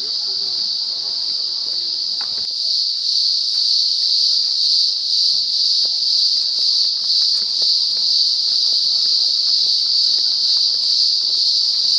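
Loud chorus of insects in the forest: a continuous high-pitched drone that grows a little louder a couple of seconds in.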